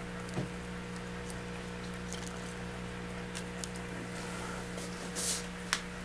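A steady low electrical hum, with faint rustling and scattered small clicks of handling. A short hiss comes a little after five seconds, and a sharp click follows just after it.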